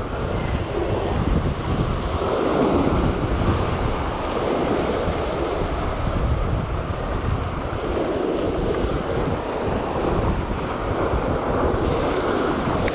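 Surf washing and breaking over a rocky shore, swelling and easing every few seconds, with wind buffeting the microphone.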